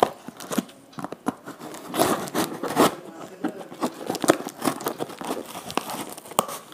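Scissors snipping and scraping through packing tape on a cardboard box, with the tape and cardboard crinkling and tearing. A run of sharp clicks and scratches, thickest about two to three seconds in.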